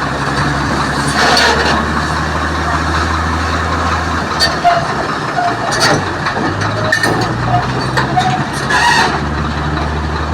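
Excavator's diesel engine running under load, its pitch dropping about four seconds in and picking up again a couple of seconds later, with several short metallic knocks.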